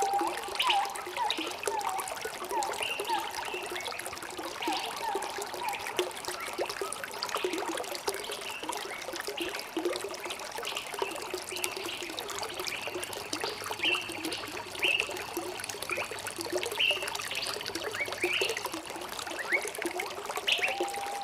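Water trickling and splashing steadily, with small birds chirping in short repeated calls over it.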